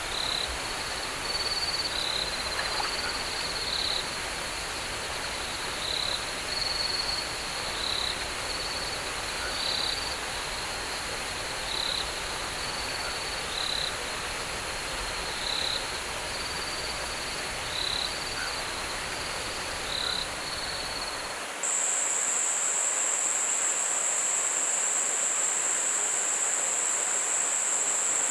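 Night-time forest chorus of calling animals: a steady high trill with short calls repeating every second or two over a steady hiss. About three-quarters of the way through it changes abruptly to a louder, continuous, shrill high-pitched trill.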